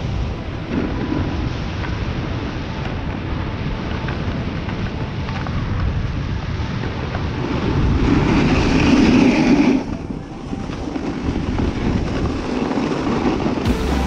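Snowboard sliding over snow with wind buffeting the microphone: a steady rushing rumble that grows louder and hissier about eight seconds in, as in a hard scraping turn, then drops off suddenly near ten seconds.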